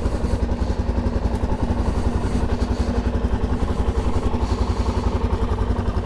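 Motorcycle engine idling steadily with an even, rapid pulse, running without choke just after starting on the first try.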